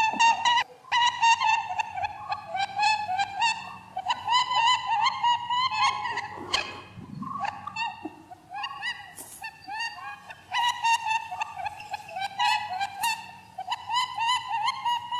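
Rapid series of short, high chirping animal calls, several a second, in runs broken by brief pauses.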